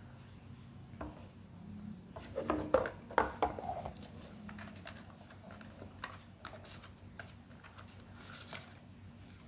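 Rustling and tapping from a smartphone and its cardboard box being handled, with a paper sleeve slid off the phone. A quick cluster of sharp clicks and taps comes a couple of seconds in, followed by scattered lighter clicks.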